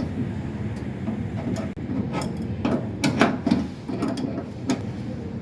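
A few irregular sharp clicks and knocks, most of them bunched together around the middle, over a steady low hum.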